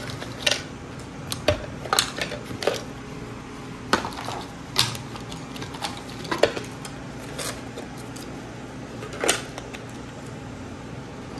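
Wooden puzzle pieces and puzzle boards knocking and clacking on a hard tabletop: a dozen or so irregular sharp taps, with a low steady hum underneath.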